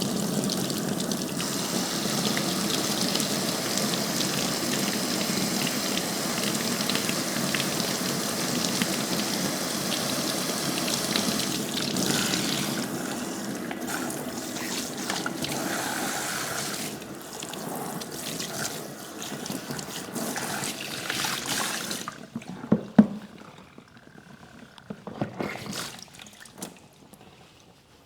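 Running water from a tap or sprayer, splashing steadily, then shut off about 22 seconds in. A few scattered knocks and handling sounds follow, the loudest a sharp knock just after the water stops.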